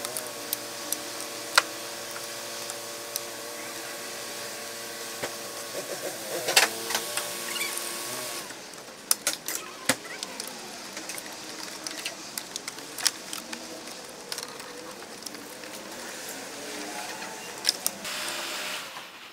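Metal hand tools clicking and clanking against engine-bay parts while a car's drive belt is being taken off, over a steady background hum that fades about eight seconds in.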